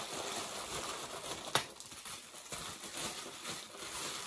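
Plastic bubble wrap rustling and crinkling as it is unwrapped from a part and scrunched up by hand, with small irregular crackles and one sharp click about one and a half seconds in.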